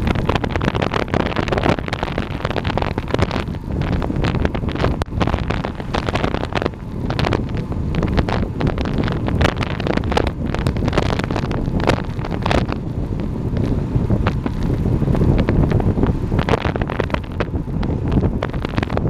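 Wind rushing over the microphone of a camera on a road bike descending at speed: a loud, continuous noise with frequent irregular buffeting thumps.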